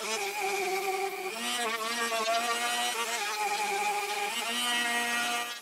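Router motor on a homemade CNC machine, spinning a wide surfacing bit as the table moves beneath it to flatten a high spot in the plywood table. It makes a steady whine whose pitch shifts slightly a few times as the cut loads it.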